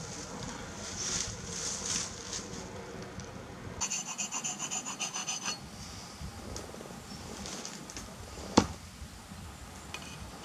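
Axe bit being honed by hand with a round sharpening stone: rasping strokes of stone on steel, with a quick run of short, ringing strokes about four seconds in. A single sharp click near the end is the loudest sound.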